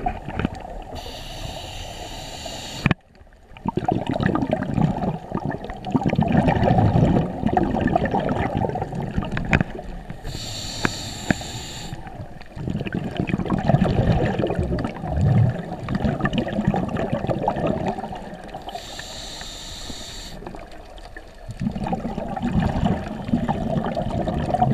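Scuba diver breathing through a regulator, heard through an underwater camera housing: three short hisses of inhaling, about nine seconds apart, each followed by a long bubbling of exhaled air.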